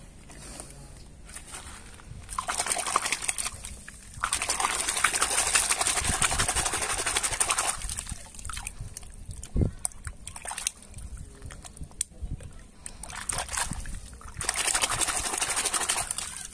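Muddy water sloshing and splashing in a bucket as plastic toy vehicles are swished and scrubbed in it by hand, in three long spells with a few sharp knocks in between.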